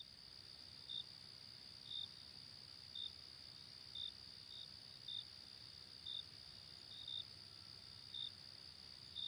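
Faint, short high-pitched chirps coming roughly once a second, a little unevenly, over a steady faint high whine.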